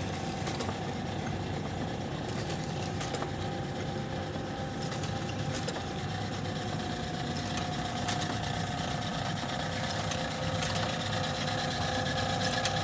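Steady machine hum with a few fixed tones, overlaid by scattered light clicks and a sharp double knock about eight seconds in.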